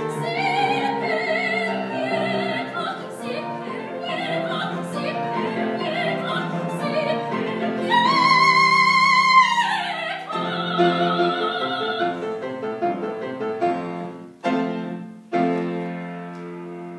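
Female operatic soprano singing with grand piano accompaniment. About eight seconds in she holds a loud high note with wide vibrato, then slides down from it. The piano closes with a few separate chords that die away near the end.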